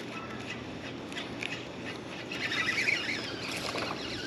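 Steady rush of a shallow mountain river flowing over rocks, with a brief louder, higher-pitched noise about two and a half seconds in.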